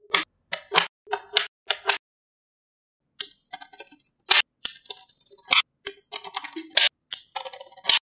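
Small magnetic balls clicking as they snap together, sharp clicks often in quick pairs, with lighter rattling ticks between them. The clicks stop for about a second, two seconds in.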